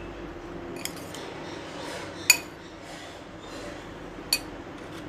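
A metal spoon stirring a chopped vegetable filling in a glass bowl, striking the glass in three sharp clinks, the loudest about halfway through, with soft scraping in between.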